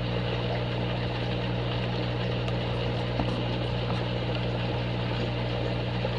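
Steady low electrical-mechanical hum with an even hiss over it, from running aquarium equipment such as filter and water pumps.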